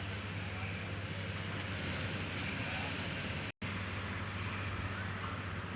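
Engine of heavy road-construction machinery running steadily with a low hum, cut off for an instant just past halfway.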